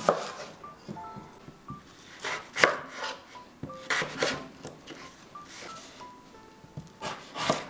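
Chef's knife slicing through raw potatoes into wedges, each cut ending in a knock of the blade on a wooden cutting board: about six irregularly spaced cuts, the loudest about two and a half seconds in. Soft background music with sparse notes underneath.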